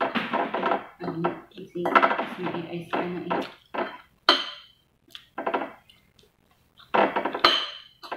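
A voice talks for the first few seconds, then eating sounds follow: fingers picking up food from a ceramic plate and chewing, in short separate bursts.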